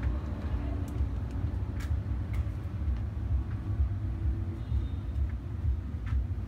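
Street ambience: a steady low rumble with a few faint clicks scattered through it.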